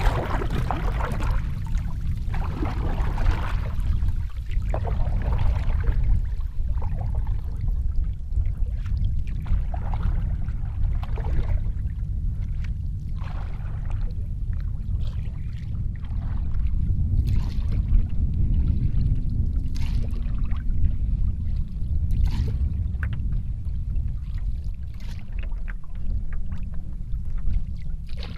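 A canoe paddle pulling through lake water in repeated strokes, with a splash or swish every second or two. Steady wind rumbles on the microphone underneath.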